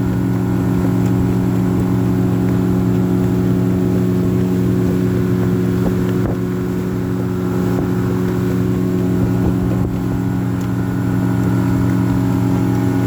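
Fishing boat's motor running steadily at cruising speed, with a steady drone throughout.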